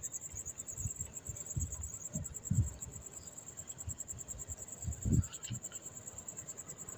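A steady high trill of crickets, with several dull, low handling thumps, the loudest about two and a half and five seconds in.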